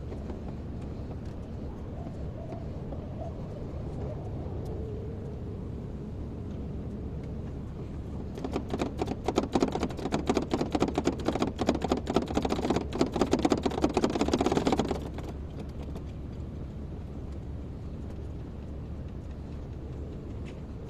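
Kobelco excavator's diesel engine running steadily with a low drone. From about 8 to 15 seconds, a loud clattering of many rapid knocks and rattles rises over it, then stops abruptly.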